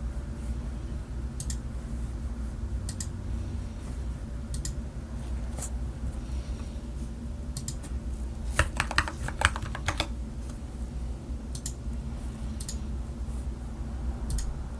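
Typing on an LTC Nimbleback mechanical keyboard with Gateron Milky Yellow Pro linear switches, XDA keycaps and a silicone-filled, tape-modded case. Single keystrokes come about every second and a half, with a quick run of keystrokes about nine seconds in, over a steady low hum.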